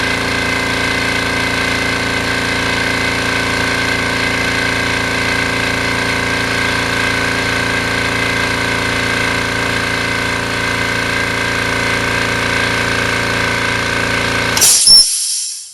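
GMC Syclone 6310 oil-free air compressor running steadily as it fills its tank. Near the end the motor cuts out at full pressure with a brief loud whistling hiss from the cutoff, then stops.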